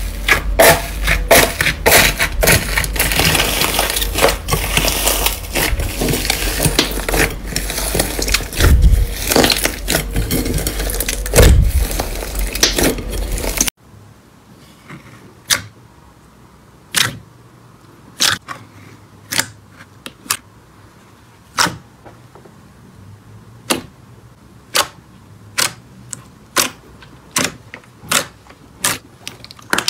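Fingers pressing into a crunchy green slime with a crusted top make a dense, continuous crackle. About fourteen seconds in this cuts to soft, glossy rainbow slime being pressed by hand, which gives single sharp pops about once a second over a quiet background.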